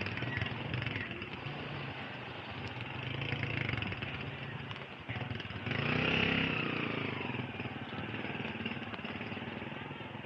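Motorcycle tricycle engines running close by in wet street traffic, over a steady wash of tyre noise on the rain-soaked road. The sound swells louder about six seconds in.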